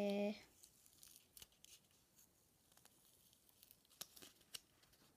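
Fingertips and fingernails picking at the edge of clear adhesive tape on a paper cutout to lift it, making faint scattered clicks and crinkles. A held voice note ends abruptly about half a second in.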